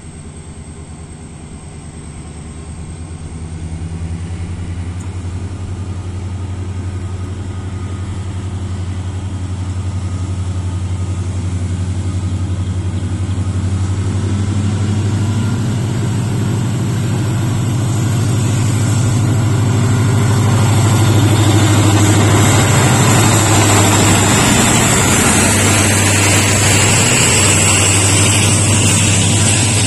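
WDP4D diesel locomotive (EMD two-stroke engine) approaching and passing at the head of a passenger train. The engine's low, steady drone grows louder, and the coaches roll past near the end. The sound is loudest about two-thirds of the way in.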